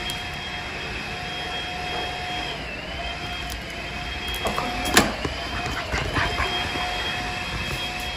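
A vacuum cleaner running with a steady whine that briefly dips in pitch every three seconds or so. About five seconds in, a loud click and a few smaller ones as the electronic door lock is worked with a key card.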